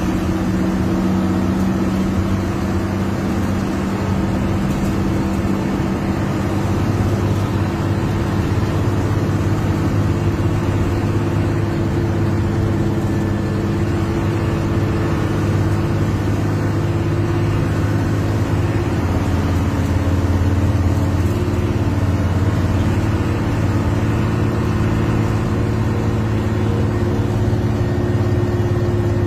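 A Hino 1J bus's diesel engine running at highway speed, heard from inside the front of the bus. It is a loud, steady engine drone whose pitch drifts a little as the bus holds speed on the road.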